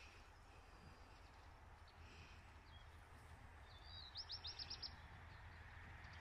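Near silence with a faint low hum. About four seconds in, a small bird gives a quick run of about six high chirps.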